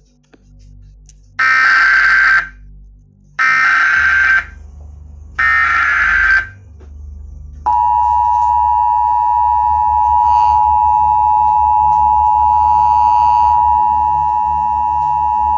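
Emergency Alert System tones for a tornado warning: three one-second bursts of screeching data noise (the SAME header), then the steady two-tone attention signal, which starts about eight seconds in and holds to the end.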